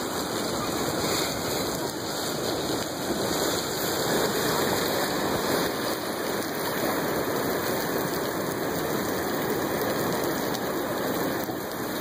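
Steady wash of ocean waves and surf, an even hiss that never stops.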